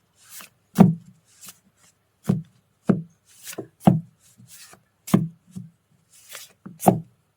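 Cards being handled and laid down on a tabletop: irregular light knocks, about one or two a second, some with a brief brushing swish of card on card.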